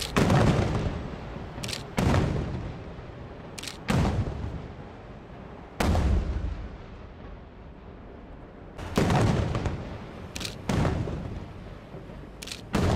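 Aerial firework shells bursting overhead, about seven booms a second or two apart, several with a sharp crack just before, each followed by a long rolling echo that fades away.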